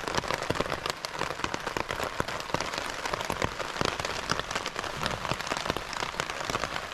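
Heavy rain pattering on a tarp shelter overhead: a dense, steady spatter of sharp drop hits.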